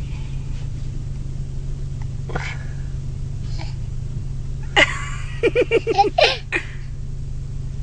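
Low, steady rumble of an idling car, with a quick run of short, laugh-like vocal bursts about five seconds in.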